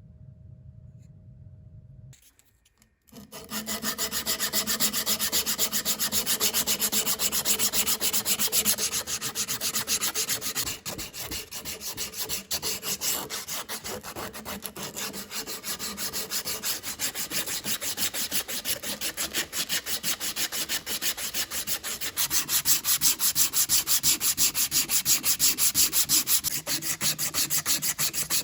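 Rapid, rhythmic rubbing against wood, with many quick even strokes. It starts about three seconds in, eases off around eleven seconds and picks up again around twenty-two seconds.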